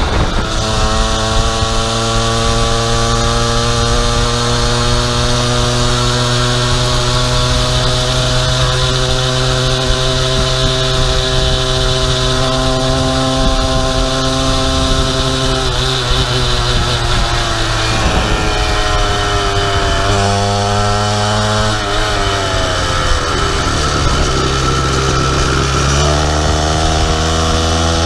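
50cc two-stroke pocket bike engine on a motorized bicycle running at steady cruising revs, then falling and wavering in pitch about two-thirds of the way through before climbing again near the end.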